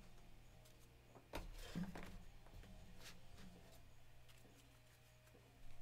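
Near silence with a steady low hum, and a faint soft knock and rustle about a second and a half in from trading cards and packs being handled.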